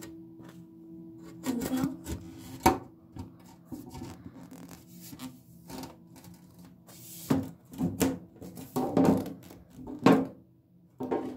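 Irregular rubbing and knocking of hands and the camera against plastic panels and fittings, with a few sharp knocks in the second half. A steady low hum runs under the first second or so.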